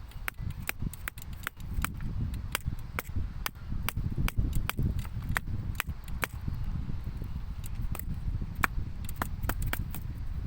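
Firewood giving off many sharp, irregular clicks and snaps, about two a second, over a low rumble.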